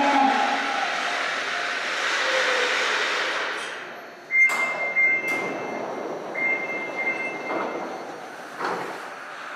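Rubber-tyred subway train rolling in along the platform, its rushing noise fading as it comes to a stop. About four seconds in comes a sudden loud clunk, then two electronic warning tones of about a second each as the doors work, and another clunk near the end.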